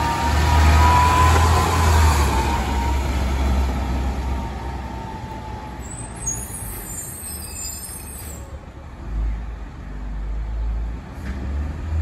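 Diesel engine of a 2002 Blue Bird International 3800 school bus running as the bus passes close by and pulls away, the rumble fading as it recedes. A whining tone sounds in the first few seconds, and a brief high-pitched squeal comes about six seconds in.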